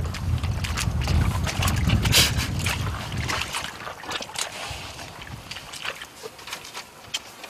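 Wind buffeting the microphone as a low rumble that eases off after about three and a half seconds, with scattered clicks and rustling from someone rummaging in a car's back seat.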